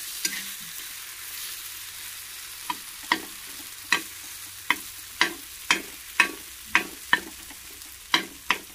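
Mashed roasted eggplant (bharit) frying in oil in a pan with a steady sizzle. A metal spoon stirs it and clacks against the pan, sharp clicks about twice a second from about three seconds in.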